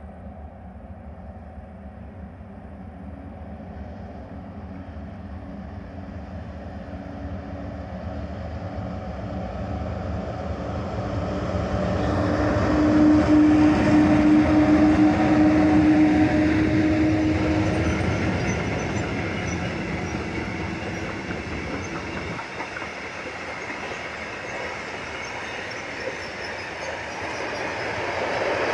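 Freight train hauled by two ÖBB class 1144 electric locomotives approaching and passing close by. The sound grows louder until the locomotives go past about 12 to 17 seconds in, with a steady tone over the rumble, then the covered and tank wagons roll by with a clatter of wheels on the rails.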